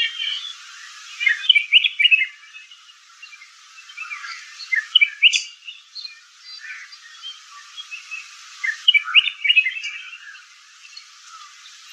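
Bird chirping: bursts of quick, short chirps coming three times, with scattered quieter notes between.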